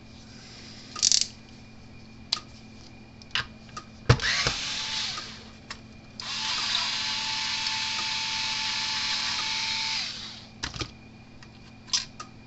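A small power drill runs steadily for about four seconds, backing out a tight bolt from a fence energizer's terminal. A shorter burst of the tool comes about four seconds in, and small handling clicks are scattered around it.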